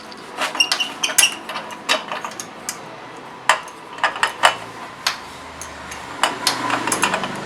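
Hand tools clinking and tapping against the metal of a dirt bike's exhaust silencer as it is being worked loose: a dozen or so sharp, irregular metallic clicks.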